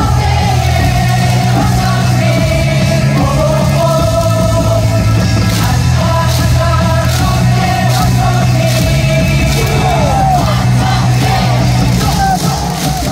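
A baseball crowd singing a cheer song loudly along with music from the stadium loudspeakers, with a steady bass beat and shouts from the fans. Near the end the bass drops out and the crowd's voices carry on.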